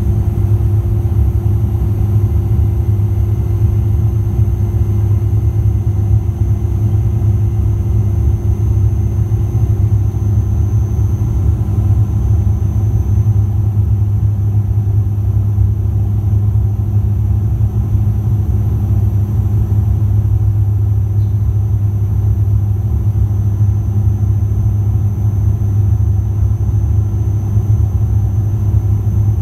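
Cabin noise of a Bombardier Q400 turboprop heard from a window seat beside the engine: the six-bladed propellers give a loud, steady low hum with evenly spaced overtones, and a thin high whine sits above it.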